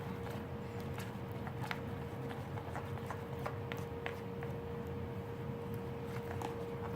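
Scattered light clicks and taps, a dozen or so at irregular intervals, from utensils and containers being handled while mixing slime, over a steady low electrical hum.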